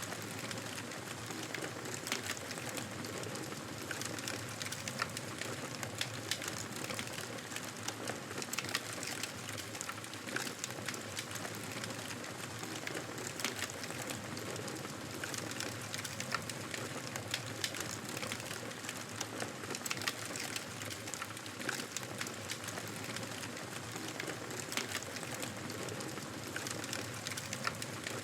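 Campfire of burning wood crackling, with frequent small sharp snaps and pops over a steady soft hiss.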